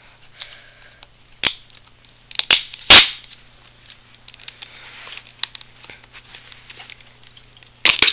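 Hard clear plastic iPod Touch retail box being handled and opened by hand: a few sharp plastic clicks and snaps, the loudest about three seconds in, with light rustling of the packaging between them and another quick pair of clicks near the end.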